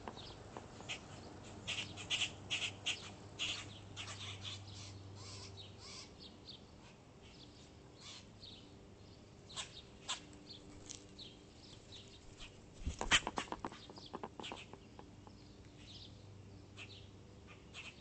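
Songbirds chirping in short, scattered calls around a backyard feeder, busiest in the first few seconds. About thirteen seconds in comes a quick burst of rapid clicks, the loudest moment.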